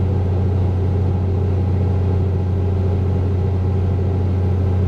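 Tractor engine running steadily at a constant speed, heard from inside the cab, with a strong, even hum while it drives a Teagle bale processor through the PTO.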